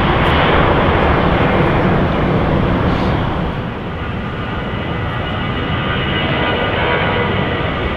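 Jet airliner engines running loud as a broad rushing noise. About three seconds in the sound changes abruptly and a thin high whine joins it.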